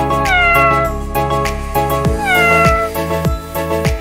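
A cat meowing twice, each meow falling in pitch, over background music with a steady beat.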